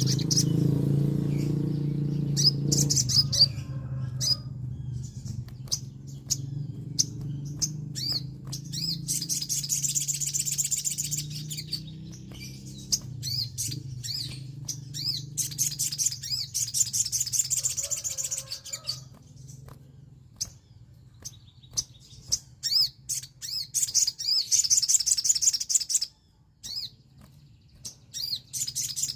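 Sogon (crested jay) calling: sharp clicks and several bursts of fast, high rattling trills. A low hum lies beneath, loudest in the first few seconds.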